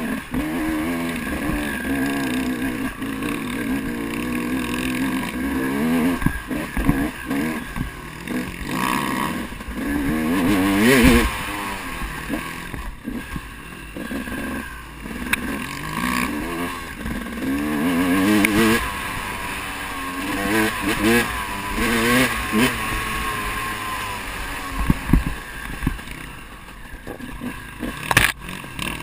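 Enduro dirt-bike engine ridden hard on a rough trail, revving up and falling back over and over as the rider accelerates, shifts and backs off, with a sharp knock near the end.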